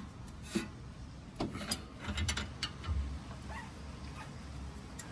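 A few faint, irregular metallic clicks and taps from a wrench turning the nut on a front thrust-arm ball joint stud, the stud held from spinning with a Torx key, as the nut is run down before torquing.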